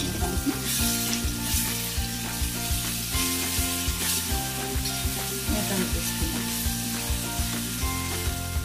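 Chopped tomatoes and onions sizzling in hot oil in a kadai, cooking down to soften, while a perforated steel spoon stirs them in strokes that bring surges of louder sizzling.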